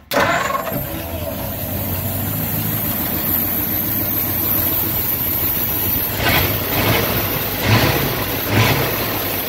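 1947 Ford flathead V8 firing up at once and running steadily, its first run after sitting for years. The throttle is blipped by hand three times near the end, the engine revving briefly each time. It runs well and sounds good, through a custom exhaust stack.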